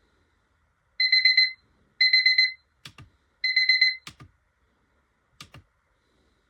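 Sunrise alarm clock's beeping alarm tone: three half-second bursts of rapid, high-pitched beeps, with a few sharp clicks between and after them.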